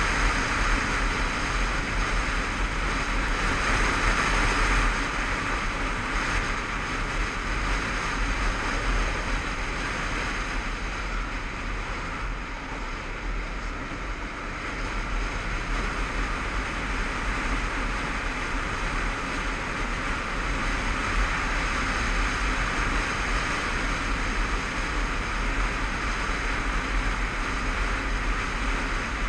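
Motorcycle riding at road speed, heard from a helmet-mounted camera: a steady rush of wind on the microphone over the low drone of engine and tyres, easing a little about halfway through.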